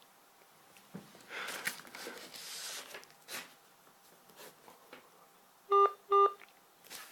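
Open telephone line while the caller waits: faint rustling and handling noise, then two short electronic beeps less than half a second apart near the end.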